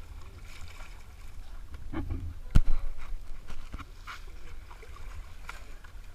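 Water splashing and sloshing around a bathing elephant over a steady low wind rumble, with a sharp knock about two and a half seconds in.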